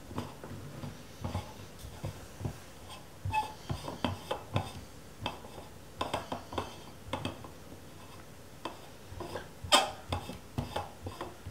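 Irregular small clicks, taps and scrapes of a Fujinon 90 mm large-format lens being handled and its rear cell screwed back on by hand through the lens board. There is a sharper knock about ten seconds in.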